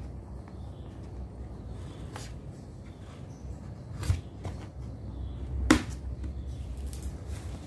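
Cardboard product box being handled and picked open at its top by hand: a few scattered taps, clicks and scrapes of fingers on card, the loudest a little past halfway, over a low steady rumble.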